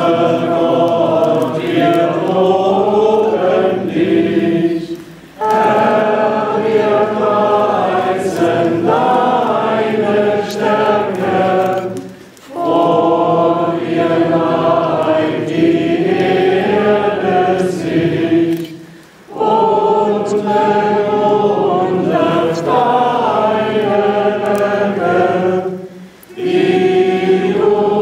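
A crowd of many voices singing a hymn together, in long sung lines separated by short pauses for breath.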